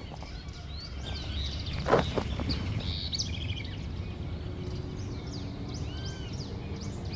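Outdoor ambience: several birds chirping with short rising and falling calls over a steady low rumble, and a single knock about two seconds in.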